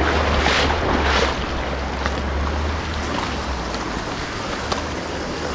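Rushing river water with wind rumbling on the microphone, the wind rumble easing off about three seconds in.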